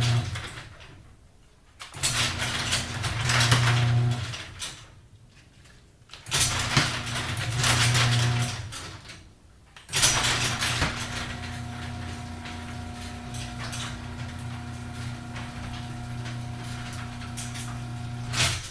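Garage door opener motor humming in stop-start runs of two to four seconds. It cuts out and starts again with a clunk each time, then runs steadily for about eight seconds near the end. The motor keeps stopping and restarting, a sign of a faulty garage door.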